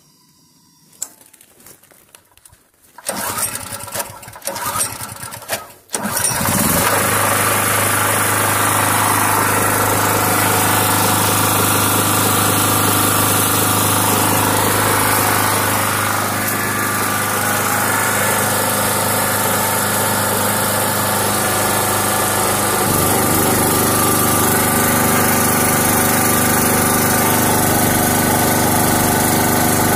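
5.5 hp single-cylinder 168F-type generator engine, running on LPG, pull-started: a few seconds of uneven cranking with the recoil starter, then it catches about six seconds in and runs steadily while driving an electric kettle element as its load.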